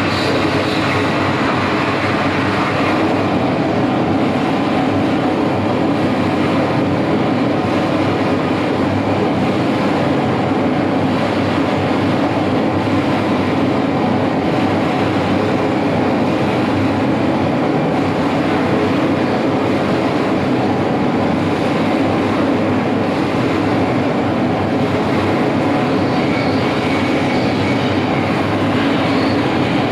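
Live harsh noise music: a dense, unbroken wall of electronic noise at a steady, loud level. The top end brightens slightly near the end.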